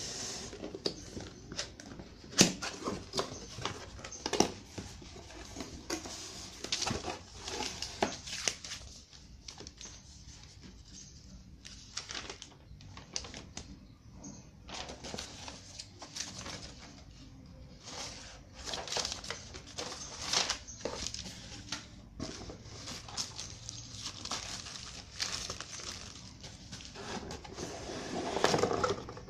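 Cardboard packaging and a paper manual being handled while unpacking a sander: irregular rustling, scraping and tapping, with a sharp knock about two seconds in and heavier rustling near the end.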